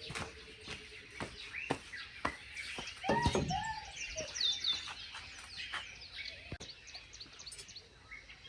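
Many birds chirping and singing in a morning chorus, in short calls and trills, with one louder, lower call about three seconds in.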